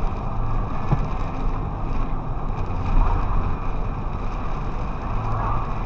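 Steady driving noise heard from inside a tractor-trailer's cab on a rain-soaked highway: a low engine and road rumble under an even hiss.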